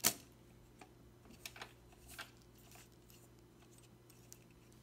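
A sharp click as a plastic 8mm film reel is pushed onto the projector's reel arm spindle, followed by a few faint clicks and taps of the reel being handled, over a faint steady low hum.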